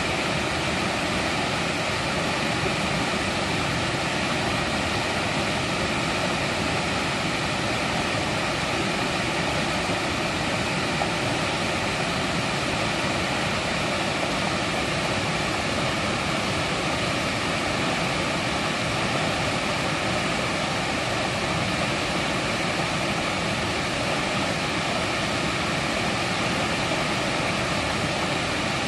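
Mountain valley stream rushing steadily over rocks, a constant even roar of flowing water.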